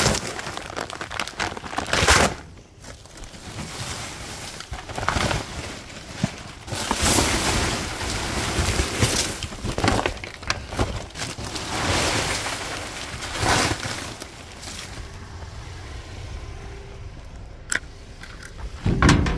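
Irregular rustling, scraping and bumping as paper and plastic feed bags are handled and shifted, mixed with handling noise from the moving phone. Several louder knocks come through it, the strongest about two seconds in.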